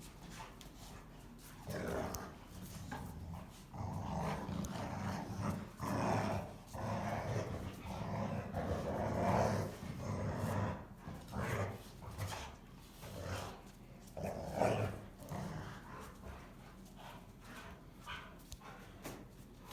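Two Rottweilers play-fighting, growling in repeated rough bouts with the odd bark mixed in. The growling is loudest around the middle and fades near the end.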